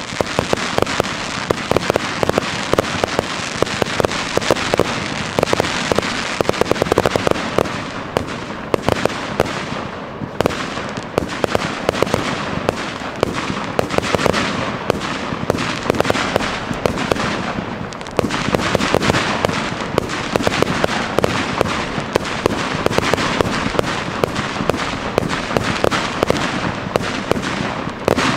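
Professional fireworks display: a dense, continuous barrage of shells bursting, with many sharp bangs and crackling reports following one another without pause.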